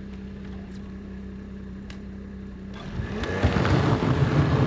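Snowmobile engine idling steadily, then throttled up about three seconds in, its pitch rising and getting louder as it starts pulling the loaded lumber sled.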